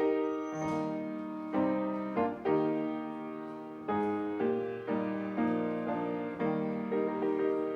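Piano playing slow chords, each struck and left to ring and fade.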